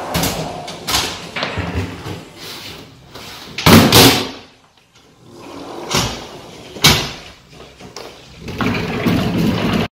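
A van's heavy-duty slide-out tray running on its rails and an aluminium storage box lifted off it and set down: a series of metal clunks and thuds, the loudest about four seconds in.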